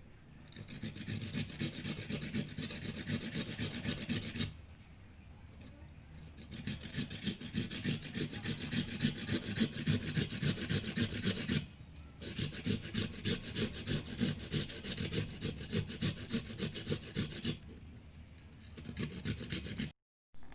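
A kencur (aromatic ginger) root being grated on a hand grater: quick rasping strokes in three long bouts with short pauses between.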